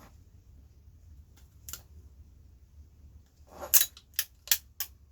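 Sharp clicks and clacks of hard toaster parts and hand tools being worked and handled during dismantling: a single click, then a quick run of four or five louder clacks near the end.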